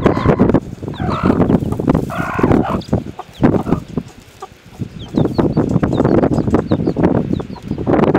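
Broody mother hen clucking and growling at close range, guarding her chicks, with the chicks' small high peeps in between.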